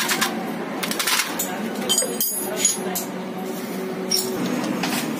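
Scattered light metallic clinks and taps, several times, as nuts and a spanner are handled on the aluminium cylinder head of a small single-cylinder motorcycle engine being bolted up. A steady low hum runs underneath.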